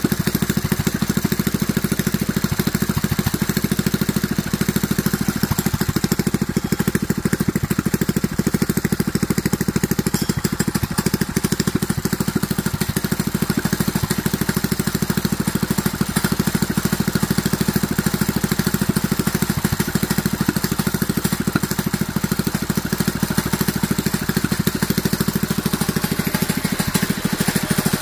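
DuroMax XP7HPE 212cc single-cylinder four-stroke engine running at a steady speed, with no revving or change in pitch.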